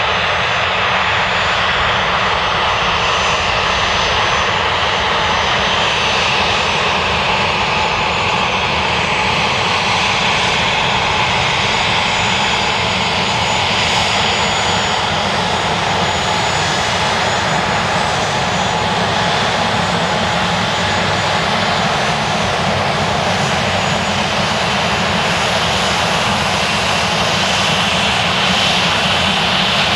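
Dassault Falcon 7X's three Pratt & Whitney Canada PW307A turbofans running steadily at low power as the trijet taxis, a continuous jet noise with a thin high turbine whine.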